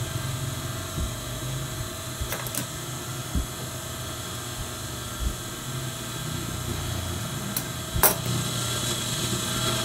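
Steady low hum of an idling industrial sewing machine motor, with a few faint snips of tailor's scissors trimming fabric and a sharp clack about eight seconds in as the scissors are set down on the machine table.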